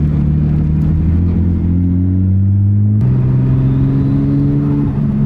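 Car engine accelerating, its pitch climbing steadily, dropping sharply on an upshift about three seconds in, then climbing again.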